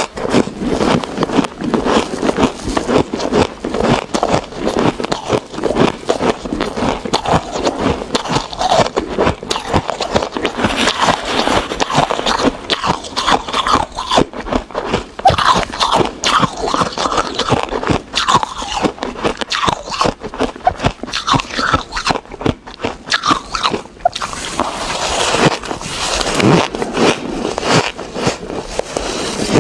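Ice being bitten and chewed close to the microphone: a continuous run of many rapid, crisp crunches.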